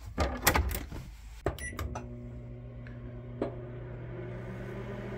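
A few clicks and knocks, then short high beeps, then a microwave oven running with a steady low electrical hum.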